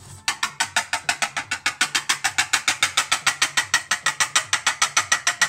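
Blini batter being beaten by hand in a bowl, the utensil clicking against the bowl in a fast, even rhythm of about nine strokes a second.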